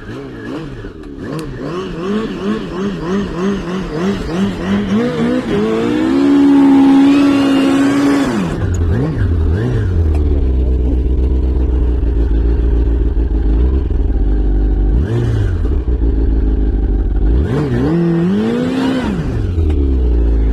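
A vehicle engine revving in quick repeated blips, then held at high revs for a couple of seconds before dropping to a loud, deep low-speed rumble about nine seconds in. Near the end it revs up and falls back once more.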